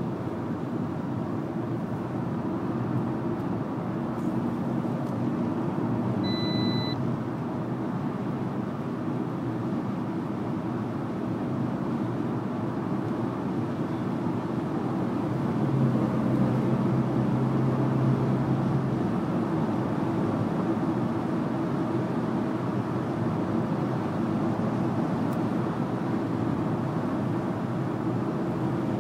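Fiat 500 TwinAir's 875 cc turbocharged two-cylinder petrol engine and tyre noise, heard from inside the cabin while driving along. The engine drone strengthens for a few seconds past the middle. A short beep comes about seven seconds in.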